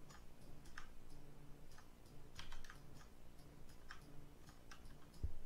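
Faint, irregular clicks of a computer mouse and keyboard, a dozen or so sharp taps spread unevenly, as polygon edges are placed one click at a time.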